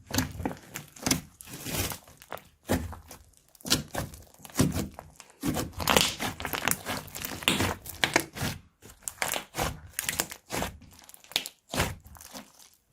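Crunchy slime being squeezed and kneaded by hand, giving dense, irregular crackles and pops in quick clusters.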